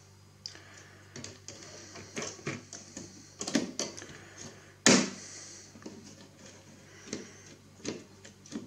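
Plug-in circuit boards being handled and worked out of their edge-connector slots in a metal instrument chassis: irregular clicks, scrapes and small knocks, with one sharp, loud click about five seconds in.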